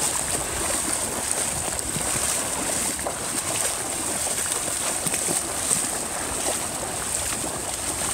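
Footsteps splashing steadily through shallow water, sneakers kicking up spray with each stride.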